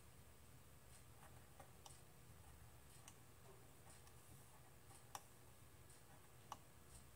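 Near silence: a faint low hum with a few soft, scattered clicks as a plastic alignment tool turns a trimmer on the signal generator's circuit board during calibration.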